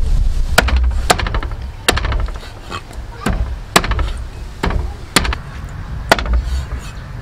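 Meat cleaver chopping raw duck pieces on a thick wooden chopping block: a series of sharp, irregular strikes, each about half a second to a second apart.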